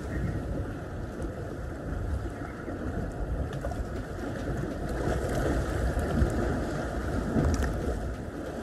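Wind blowing across the microphone, a steady gusty rush strongest in the low end.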